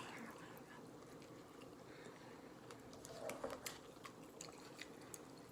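Faint eating sounds: scattered small clicks of chewing and mouth noises, with a soft murmur about three seconds in.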